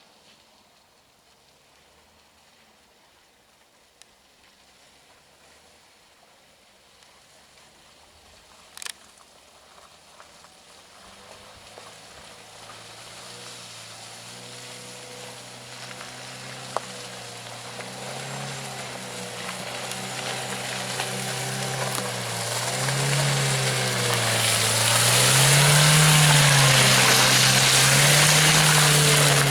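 An off-road SUV engine comes in faintly and grows steadily louder as it approaches, its revs rising and falling in slow waves, with a growing hiss of tyres churning through mud and water.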